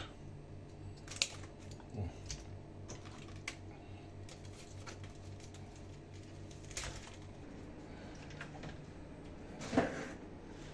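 Scattered light clicks and taps of kitchen utensils being handled, about five in all with the loudest near the end, over a faint steady low hum.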